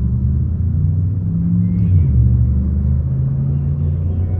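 A motor vehicle's engine running at low revs: a steady low rumble whose pitch shifts slightly a couple of times.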